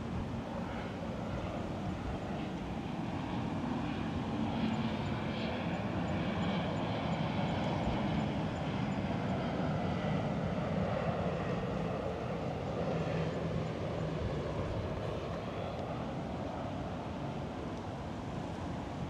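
A distant engine drone that swells and then fades over several seconds.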